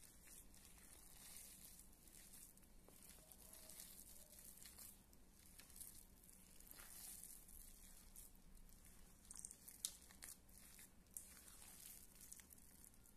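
Faint, soft squishing and scraping of a silicone spatula stirring a moist grated-cassava mixture in a stainless steel bowl, with one sharper tap about ten seconds in.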